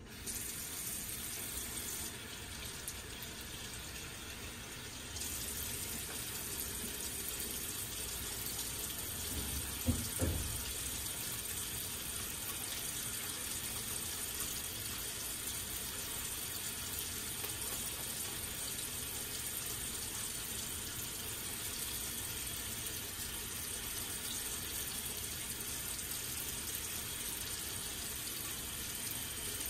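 Water from a bathroom sink tap running steadily into the basin while hands are washed under it. It gets a little louder about five seconds in, and there is one short low thump about ten seconds in.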